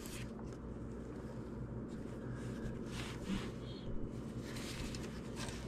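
Quiet background with a low steady hum and a few faint soft clicks and rustles, typical of a hand-held camera being handled.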